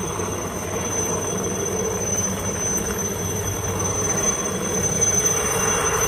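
Steady roar of a fast-flowing, swollen river, with a constant thin high-pitched tone over it.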